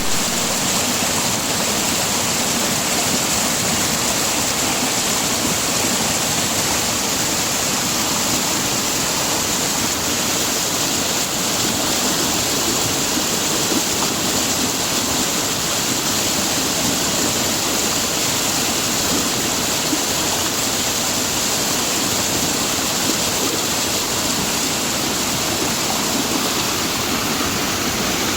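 Waterfall: water falling and splashing with a steady, even rush.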